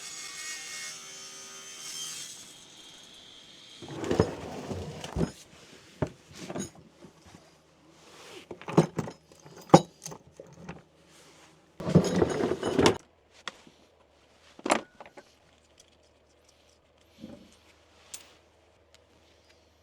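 A power saw's motor runs with a steady hum for the first few seconds. It is followed by irregular knocks and clatters of wood and tools being handled on the bench, with the loudest clusters about four, nine and twelve seconds in.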